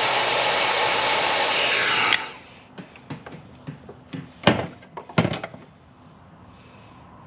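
Heat gun blowing steadily on a glue-lined heat-shrink wire connector, melting its glue, then cut off abruptly about two seconds in. A few sharp clicks and knocks follow, the loudest two about halfway through.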